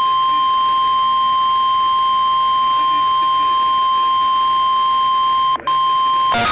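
NOAA Weather Radio 1050 Hz warning alarm tone: one loud, steady high tone, sent as a test of the alarm signal that switches on weather-alert receivers. It breaks off for an instant near the end.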